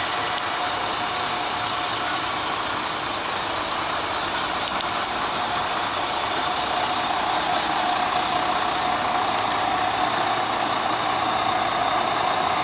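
Steady hiss and hum of locomotives standing with their on-board machinery running, a constant tone in it growing a little stronger about halfway through.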